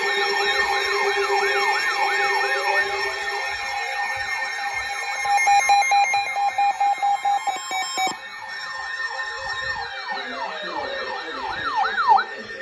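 NOAA weather radio sounding its warning alarm: a siren-like rising-and-falling whoop repeating about twice a second over steady tones. It cuts off about twelve seconds in, when the alarm is silenced.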